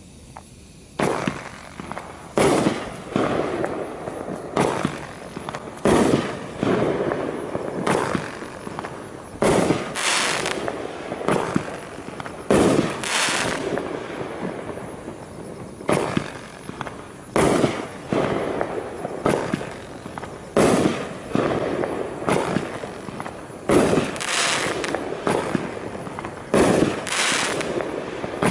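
A 16-shot consumer firework cake (Topgun 'Go For It') firing shot after shot: sharp bangs starting about a second in and coming roughly every one to one and a half seconds, each trailing off briefly.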